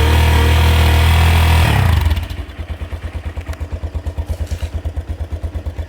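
Italika DM200 motorcycle's single-cylinder engine through its stock exhaust, held at raised revs and then dropping back to an even, pulsing idle about two seconds in. The owner finds the unmodified exhaust very quiet.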